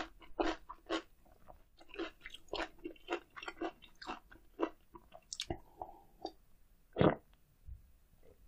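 Close-miked chewing of grilled eel, with moist, crunchy bites in quick succession that die away about six seconds in. One louder sound follows about seven seconds in.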